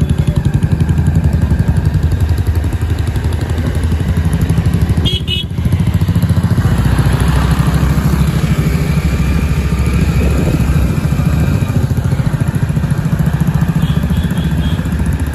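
Motorcycle engine running steadily on the move, a rapid even beat of low pulses. The engine sound drops off briefly about five seconds in, then picks up again.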